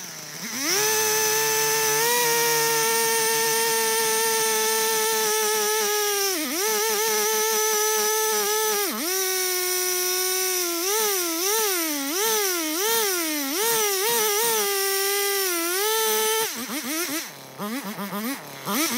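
Husqvarna two-stroke chainsaw running at full throttle while cutting through a felled hickory log. Its pitch sags and recovers a couple of times, then wavers up and down quickly as it works through the cut. Near the end it drops back toward idle with a few short revs.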